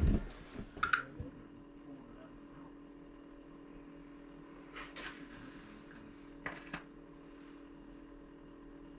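Quiet room tone with a steady low hum and a few brief, faint clicks and knocks: one about a second in, and two more around five and six and a half seconds in.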